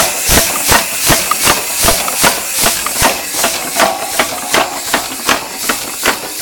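Antique 15 hp Acme steam engine running on compressed air: regular exhaust chuffs, about three a second, over a steady hiss of air.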